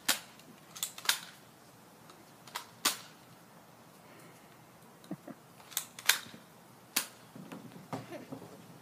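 Nerf foam-dart blasters being primed and fired: a string of sharp snaps and clicks at irregular intervals, the loudest about a second in, near three seconds, and twice around six to seven seconds.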